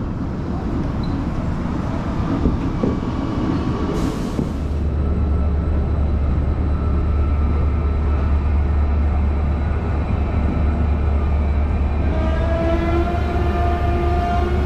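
KTX-EUM high-speed electric train with a steady low rumble. A brief hiss comes about four seconds in, and a pitched electric whine of several tones begins about twelve seconds in.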